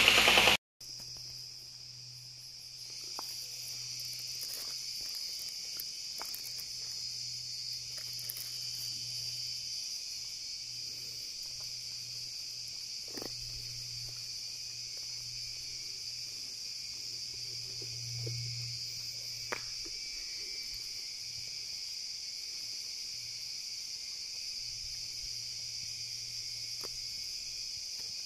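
Steady, high-pitched chorus of many insects: one unbroken shrill drone that holds the same pitch throughout.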